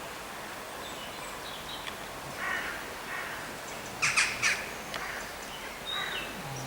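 Outdoor farm ambience with small birds chirping here and there, and about four seconds in a crow cawing three times in quick succession.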